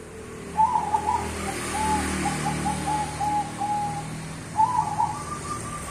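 Zebra dove (perkutut) of the cemani bangkok strain cooing. A quick burst of notes leads into a string of short, evenly spaced coos. A second burst comes near the end, followed by a run of evenly repeated slightly higher notes.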